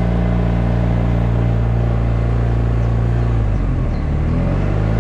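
Motorcycle engine running steadily under way, heard from the rider's helmet; about three and a half seconds in its pitch breaks and shifts up and down as the throttle changes.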